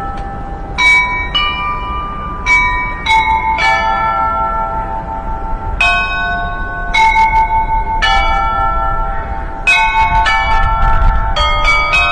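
Bells of several pitches struck one after another in an irregular sequence, about a dozen strikes. Each strike rings on and overlaps the next, and one tone pulses as it fades. A steady low rumble runs underneath.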